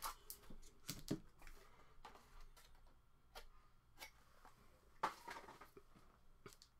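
Faint, scattered clicks and short rustles of a small cardboard box being opened and handled by hand, with a few sharper ticks about a second in and again around five seconds in.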